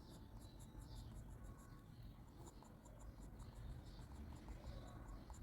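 Pencil scratching on paper in quick, short, repeated strokes, faint and steady: shading with graphite.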